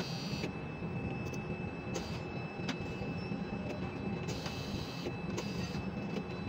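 Steady mechanical rumble and hum of a ship-to-shore quay crane, heard from the operator's cab, with a few faint clicks scattered through it.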